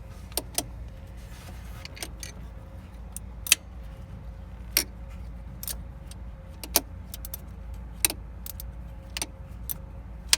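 Sharp metallic clicks and clinks of a hand tool working on the alternator's mounting bolt as it is tightened, roughly one a second and uneven, over a low steady hum.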